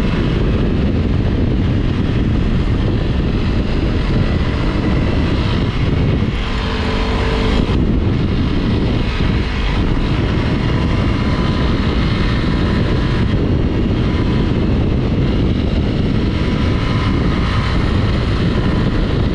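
Honda CRF Rally motorcycle's single-cylinder engine running as the bike is ridden along dirt tracks, mixed with heavy riding noise; about six seconds in the engine note briefly comes through more clearly for a second or two.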